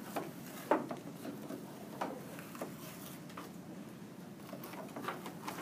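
Chef's knife cutting through a red bell pepper, the blade knocking on a wooden cutting board several times at uneven intervals.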